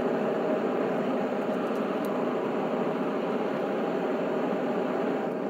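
Gas burner of a metal-melting furnace running with a steady rushing noise while it heats a crucible of scrap aluminum.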